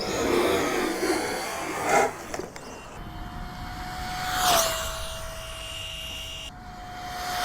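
Electric RC car's brushless motor whining steadily as it passes at speed on sand, the pitch dropping as it goes by; this happens twice, the second near the end, after a stretch of rushing wind and tyre noise.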